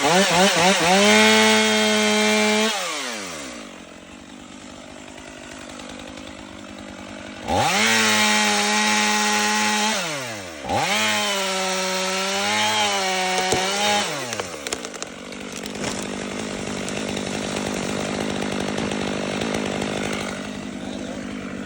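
Two-stroke chainsaw cutting the last wood behind the hinge to fell a tree: three full-throttle runs, each ending with the engine winding down to idle, the last two close together. A steadier, duller noise fills the last several seconds.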